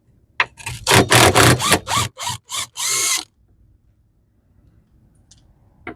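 Handheld power tool run in a series of short trigger bursts, backing out the bolts that hold an RZR's skid plate. About nine quick bursts over roughly three seconds, then it stops.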